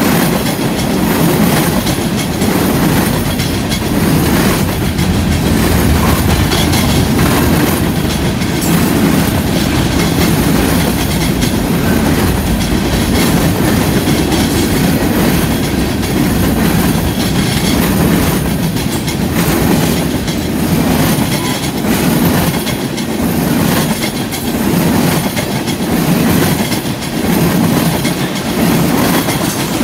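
Freight train cars (tank cars, a boxcar and covered hoppers) rolling past close by: a steady rumble of steel wheels with a rhythmic clickety-clack as the wheels cross the rail joints and junction switch.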